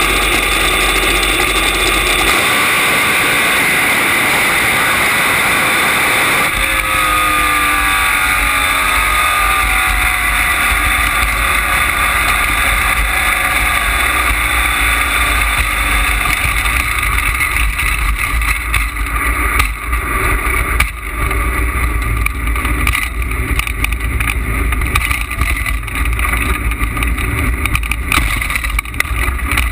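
Nostalgia top fuel dragster's supercharged engine, heard close up from the car's own chassis on a short test pass. It runs hard, its pitch falls away for a few seconds from about six seconds in, and then it keeps running under steady wind and road rush as the car rolls on down the track.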